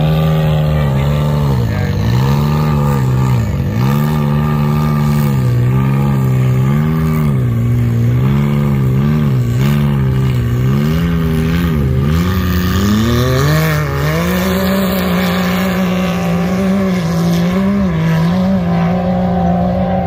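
Turbocharged Can-Am side-by-side engine running at low speed, its note dipping and rising about once a second with the throttle, then climbing and holding steadier for the last few seconds.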